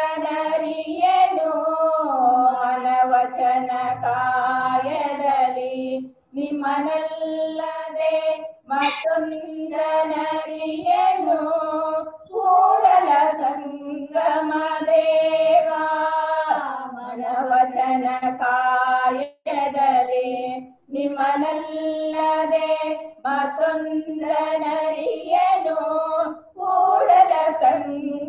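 Three women singing a Kannada vachana together, with long held, ornamented notes in phrases broken by short breath pauses.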